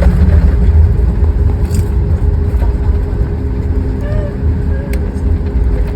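Boeing 737 MAX with its CFM LEAP-1B engines taxiing: a steady, loud low rumble with a constant hum above it.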